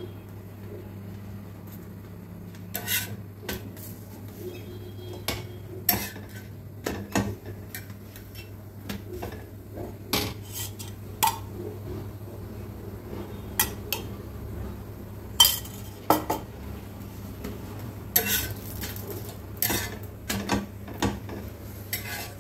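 A steel spatula scraping and clinking on a tawa as theplas are pressed and flipped, with a steel spoon tapping while oil is added. The clinks and scrapes come irregularly throughout, over a steady low hum.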